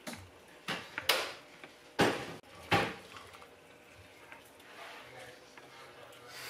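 Metal ladle scooping chicken soup out of a stainless steel stockpot and pouring it into a plastic bowl: four short splashing, scraping sounds in the first three seconds, then quieter.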